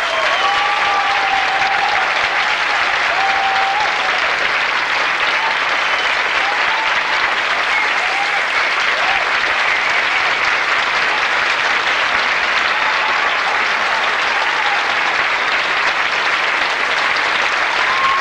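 Large theatre audience applauding steadily at a curtain call, with scattered cheers over the clapping.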